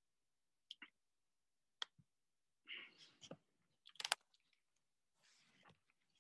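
Near silence with a few faint, scattered clicks; the sharpest, a quick double click, comes about four seconds in.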